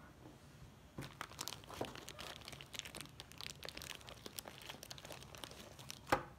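Plastic wrapper of a beef snack stick crinkling and tearing as it is opened by hand, starting about a second in, with a sharp click near the end.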